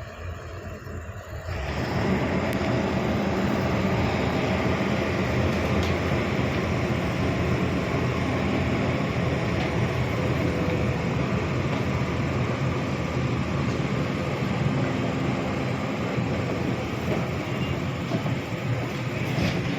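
A heavy machine's diesel engine running loud and steady, coming up suddenly about a second and a half in.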